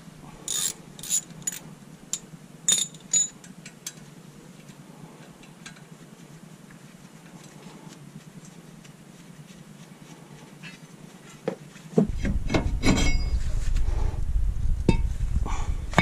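Hand tools clicking and clinking against a brake rotor as the T27 Torx screw holding the rotor to the front hub is worked loose: a handful of sharp, irregular metal clicks in the first few seconds. About twelve seconds in, a louder low rumble starts suddenly, with a few clanks.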